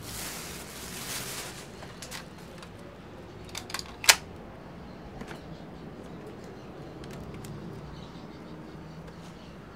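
A pistol being handled and wiped with a cloth: rustling at first, then a few light metallic clicks and one sharp click about four seconds in, over a faint low steady hum.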